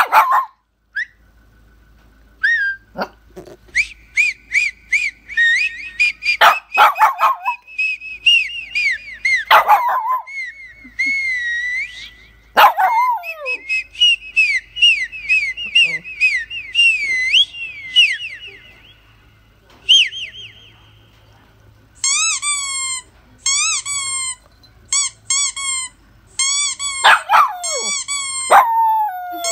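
A small dog whining and yelping: long, high, wavering whines through the middle, and a run of short, repeated rising-and-falling yips in the last third, with a few sharp clicks between.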